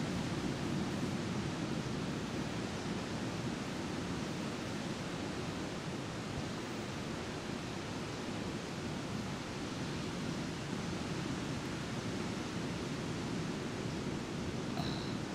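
Steady, even rushing noise, deepest and strongest low down, with a brief faint high chirp near the end.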